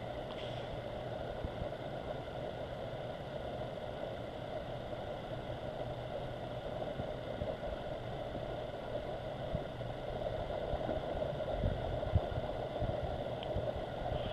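A vehicle engine running steadily: an even drone with a low hum, and a few low thumps near the end.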